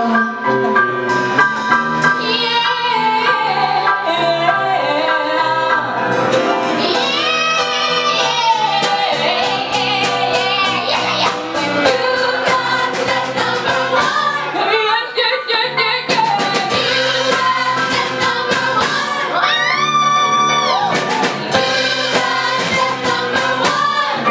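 Live musical-theatre song: a female lead singing over an ensemble of backing singers and a small band of piano, drums, bass, violin and saxophone, with steady drum beats and a long held note with wide vibrato near the end.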